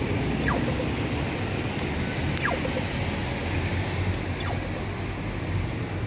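Steady rumble of city traffic, with three short falling whistles from birds cutting through it.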